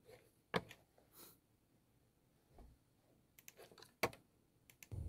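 A few faint, short clicks and taps in a quiet small room, the loudest about half a second in and about four seconds in, with a quick run of lighter ones just before the second.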